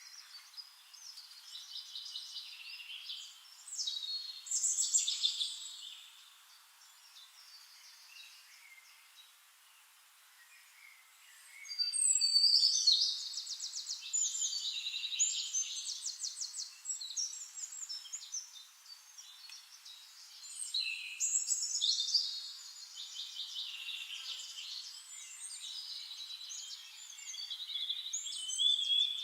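Songbirds singing: bursts of high chirps and fast trills. There is a quieter lull about a third of the way through, and the song is loudest in two long stretches in the second half.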